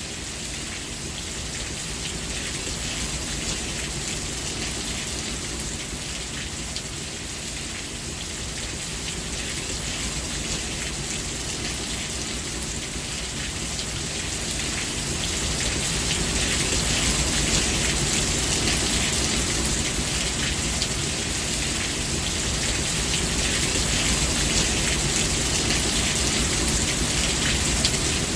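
Steady rain falling, a dense patter of drops hissing on surfaces over a low rumble, growing somewhat heavier about halfway through.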